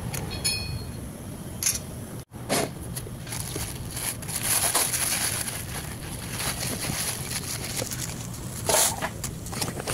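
Plastic wrapping rustling and crinkling in irregular bursts as a new wheel bearing is unpacked from its cardboard box, loudest near the end.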